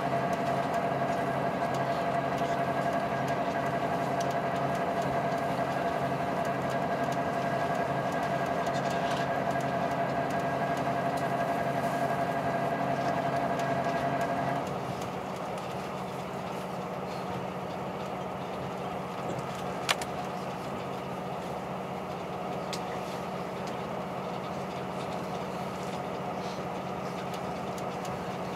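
KiHa 183 series diesel railcar running under power, heard from inside the carriage: a steady engine and drive hum with a whine above it. About halfway through the whine stops and the sound drops to a quieter steady hum as the power is eased off, with a single sharp click a few seconds later.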